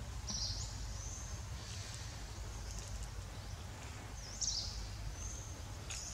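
Outdoor ambience: a high-pitched chirping call about half a second in and another about four and a half seconds in, with a few fainter short chirps between, over a low steady rumble.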